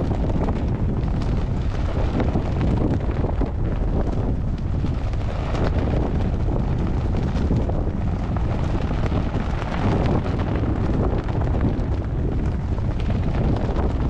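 Strong wind buffeting the microphone, a loud, continuous low rumble that rises and falls with the gusts.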